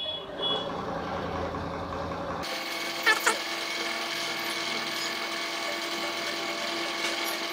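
Homemade lathe running with its power feed engaged: a steady motor whine with the mechanical noise of the gears and lead screw driving the saddle. Two sharp clicks a little after three seconds in.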